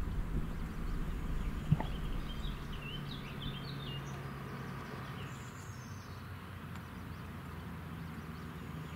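Small birds singing in short, quick chirping phrases over a steady low hum and outdoor rumble. A single sharp click comes about two seconds in.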